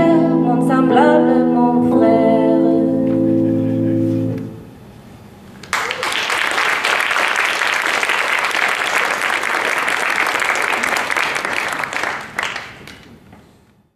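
The last sung line and a held keyboard chord ring out and fade about four seconds in. After a short pause, an audience breaks into applause all at once, which dies away near the end.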